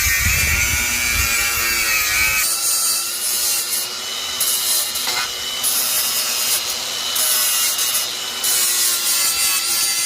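Power tool cutting and grinding 50 mm polyethylene (poly) pipe to make leg splints, running steadily with a whining motor. About two and a half seconds in the sound changes to a higher, hissing grind, as the edges are worked off with a flapper disc.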